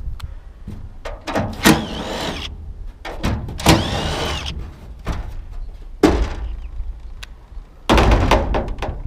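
Aluminum porch framing and panels being worked apart: metal knocks and clanks, with two screeching metal-on-metal scrapes about two and four seconds in.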